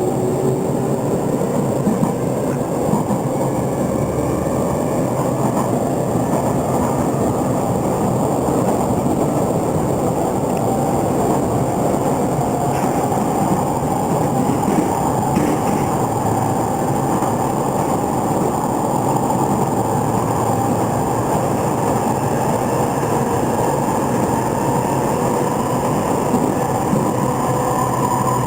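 Interior running sound of an E231-800 series electric commuter train: steady wheel-and-rail rumble with the traction motors' whine rising slowly in pitch as the train gathers speed.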